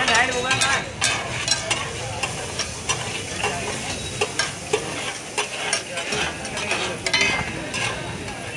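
Metal spatulas scraping and clattering on a large flat griddle (tawa) as pav bhaji pulav is stirred and chopped, over a steady sizzle of frying.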